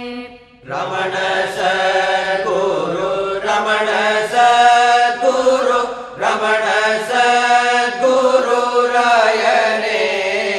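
Devotional chanting in long held, gliding phrases, with short pauses a little under a second in and about six seconds in.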